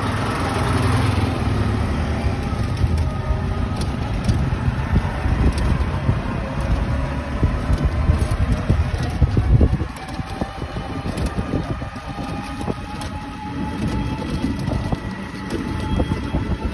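Riding in an open rickshaw along a road: wind buffets the microphone in a heavy, fluttering rumble under the vehicle's running noise and a faint, gliding motor whine. The rumble eases about ten seconds in.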